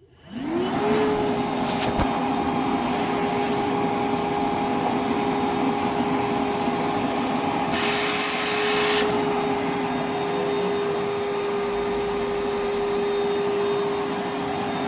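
Milwaukee M12 1.6-gallon wet/dry vacuum's brushless motor switched on at its high setting, spinning up within about a second to a steady whine over rushing air. A brief louder hiss comes about eight seconds in.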